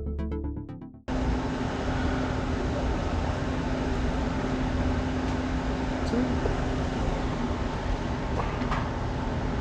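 Electronic music cuts off about a second in, replaced by a steady noisy background with a low hum and a few faint clicks.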